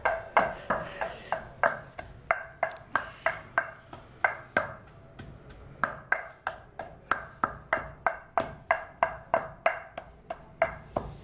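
A wooden pestle pounding almonds in a mortar, in steady strokes about three a second, each stroke a sharp knock with a brief ring.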